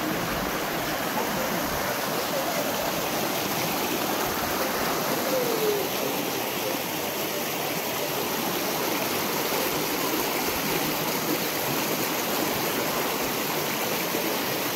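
Shallow rocky river rushing steadily over stones and small rapids, a continuous, even noise of running water.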